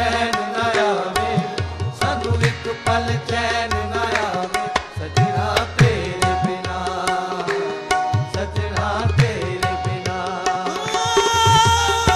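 Qawwali music: a male lead singer over harmoniums, with a steady beat of drum strokes. Near the end a voice holds a long, wavering note.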